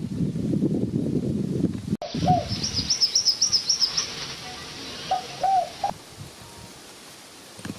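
Rustling for about two seconds, then after an abrupt cut, bird calls: a quick run of about ten high chirps and a few low, cooing swoops.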